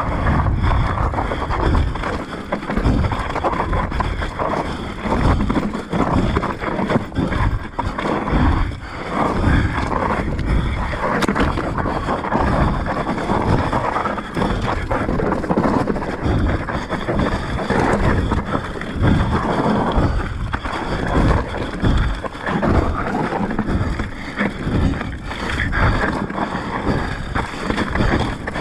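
Scott Ransom full-suspension mountain bike descending a rocky, loose trail: tyres crunching and scraping over rock and gravel, with constant knocks and rattles from the bike as it jolts over the rocks, and wind buffeting the microphone.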